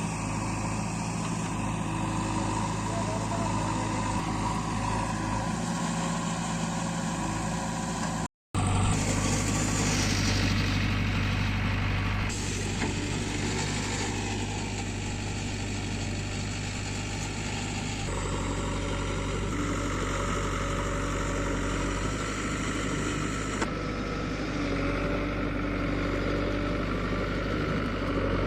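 JCB 3DX backhoe loader's diesel engine running steadily while the machine works. The sound drops out for a moment about eight seconds in.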